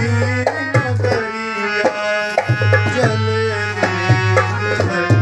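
A man singing a vidai geet, the folk song for a bride's farewell, over tabla and a steady low drone.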